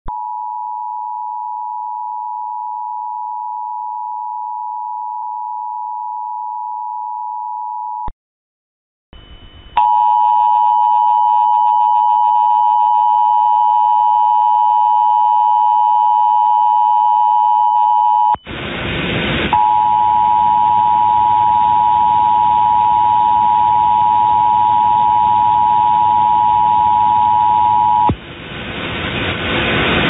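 Emergency Alert System attention signal: the steady two-tone 853/960 Hz alarm. It sounds cleanly for about 8 s and breaks off. It comes back louder over a hum, hiss and faint extra tones, is cut by about a second of loud hiss, and resumes until it gives way to loud hiss near the end.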